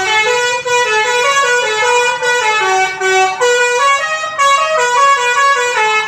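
Bus telolet horn, a multi-note musical air horn on a coach, playing a loud, fast tune of short notes that step up and down in pitch.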